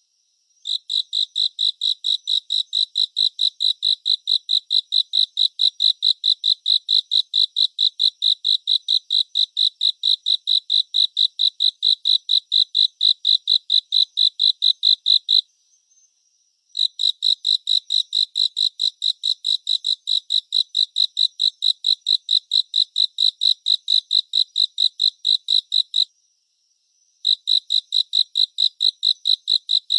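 A cricket chirping: rapid, evenly repeated high-pitched pulses, about five a second, in long runs that break off briefly around the middle and again a few seconds before the end.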